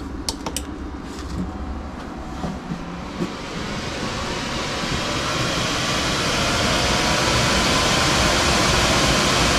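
24-volt BYD battery-pack cooling fan starting up after a few light clicks: a rush of air that grows louder over several seconds and then holds steady. It is pretty loud and running at about 19 volts, two-thirds of its power.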